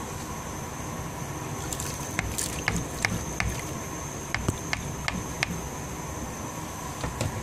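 Pan of lentils boiling on a gas burner: a steady hiss from the flame and the foaming pot, with a scattered run of sharp clicks from about two to five and a half seconds in.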